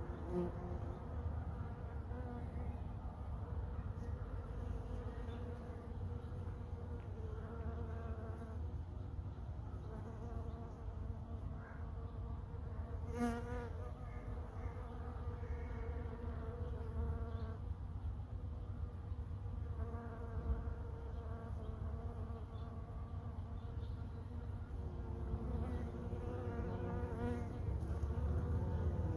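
Bumblebee buzzing as it flies among flowers, its hum fading in and out as it moves, with one brief louder, wavering pass about halfway through. A steady low rumble lies underneath.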